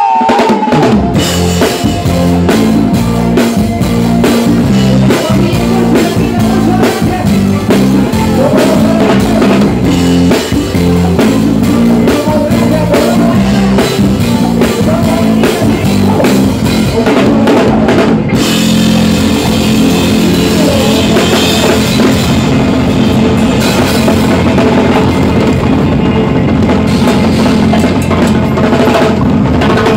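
Live band music with a drum kit played close by, cymbals and bass drum over bass notes that step from chord to chord, loud and steady throughout.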